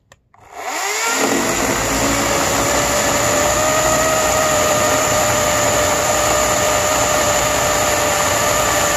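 EGO 14-inch cordless electric chainsaw spinning up about half a second in, then running steadily with its chain cutting through a block of wood. The battery is nearly drained, its gauge in the red.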